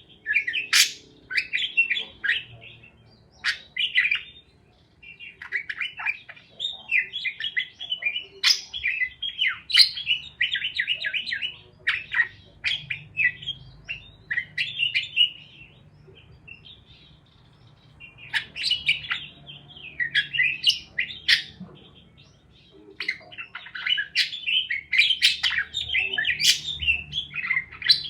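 Parakeets chirping and chattering in quick, high runs of chirps with the odd squawk. The chirps come in bursts separated by short lulls.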